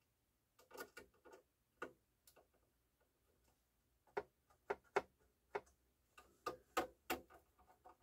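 Light, irregular clicks and taps as a screwdriver and fingers work the metal tray plate and plastic front of a CD changer being reassembled. A few come early, then they come thick from about halfway through.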